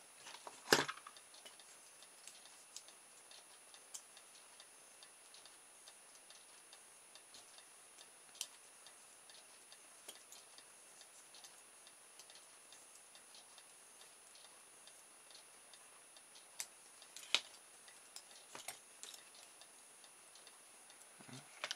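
Faint, even ticking, with a few louder small clicks and taps from hands working a small aluminium drinks-can propeller; the loudest click comes about three quarters of the way through.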